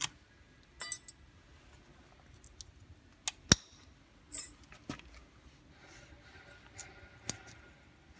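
Small steel brake-pad anti-rattle clips clinking as they are handled: scattered sharp clicks, the loudest about three and a half seconds in.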